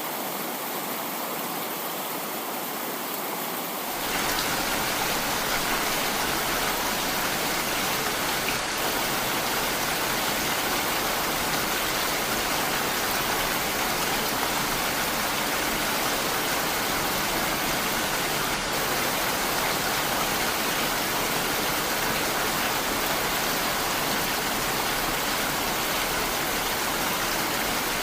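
Heavy rain falling steadily, an even hiss. About four seconds in it grows louder and fuller.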